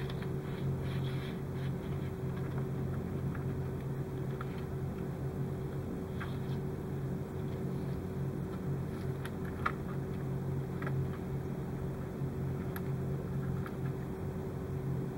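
Steady low hum, with a few faint light clicks as thin hookup wires and LED leads are handled by hand.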